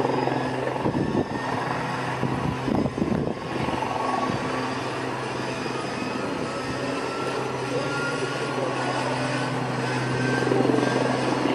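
A steady low mechanical drone, with rougher noise for a couple of seconds early on and a faint whine slowly rising in pitch in the second half.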